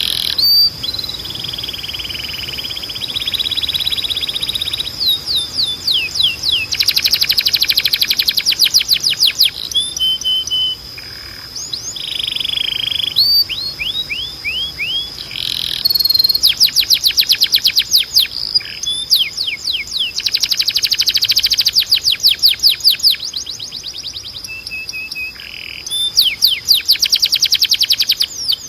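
Timbrado canary singing: fast trills of rapidly repeated falling notes, alternating with slower runs of notes and short held tones. A steady high tone sounds underneath.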